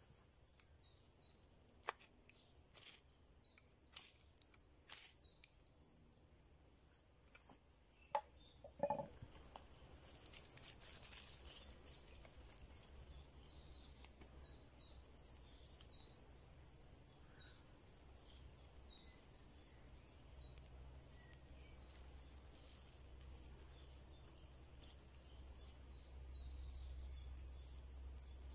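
Faint woodland ambience: a few sharp clicks and scrapes in the first nine seconds, then small birds singing in rapid, high chirps.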